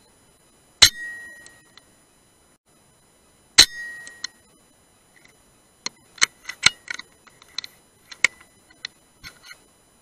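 Two shots from a Brocock Sniper HR .177 air rifle, about three seconds apart, each a sharp crack with a short ringing tail. In the second half, a scatter of light, uneven metallic clicks and clinks.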